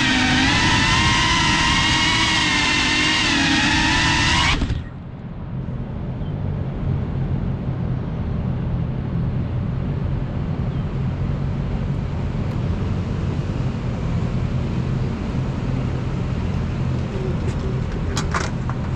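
FPV quadcopter's brushless motors and propellers whining, the pitch wavering with the throttle, then cutting off abruptly about five seconds in as the drone lands and disarms. A steady low rumble of city traffic follows, with a few sharp clicks near the end as the drone is handled.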